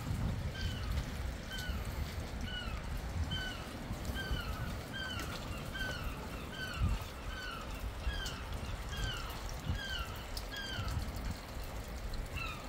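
Rainwater trickling and dripping off a wet rock overhang over a low rumble, with a short high chirp repeating about twice a second.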